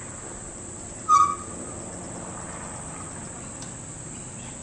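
A single short bird call about a second in, over a steady high-pitched insect drone.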